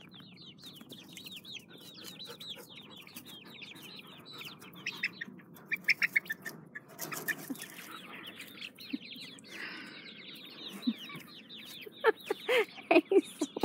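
Young chickens peeping, a steady stream of short, high, falling chirps, with louder, lower clucking calls near the end.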